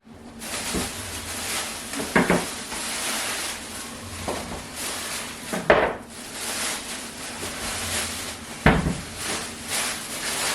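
Kitchen tap running steadily into the sink, with dishes or pans clunking three times, about two, six and nine seconds in.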